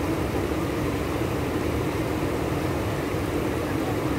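Steady rushing noise of a swollen, fast-flowing flooded river, even and unbroken.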